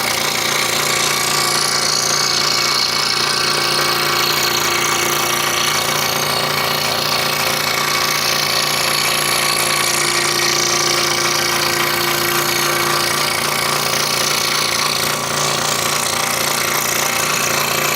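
Scroll saw running steadily, its reciprocating blade cutting through a wooden puzzle board: a constant machine hum with a hissing rasp from the teeth in the wood.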